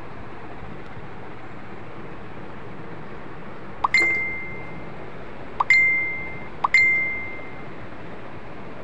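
Three short bell-like dings, about four, five and a half and six and a half seconds in. Each opens with a brief rising chirp and then rings as one clear tone that dies away within about a second, over a steady background hiss.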